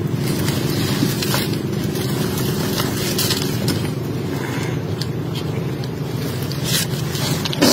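A motor running steadily with a low, even hum, with a few faint clicks and scrapes scattered through it.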